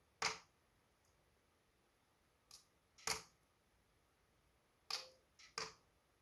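Wood fire in a wood-burning fireplace crackling: about six sharp, separate pops over an otherwise quiet background, without a steady roar of flame.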